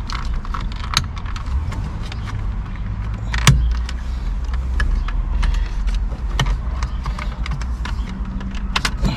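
Scattered clicks and knocks of hard plastic and small tools being handled as a Mk5 Golf's steering column module is worked free of its retaining tabs, with one sharper click about three and a half seconds in. A steady low rumble runs underneath.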